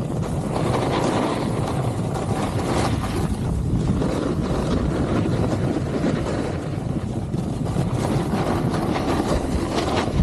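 Wind rushing over the action camera's microphone while a snowboard slides over groomed snow: a steady, loud rushing noise with a low rumble.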